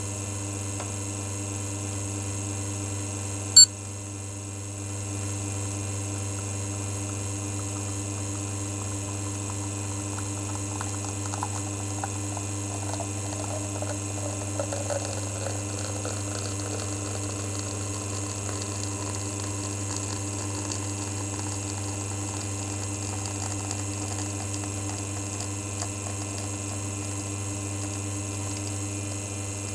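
Lelit Bianca espresso machine's rotary pump running steadily through an extraction, a low even hum. A single sharp click comes about four seconds in.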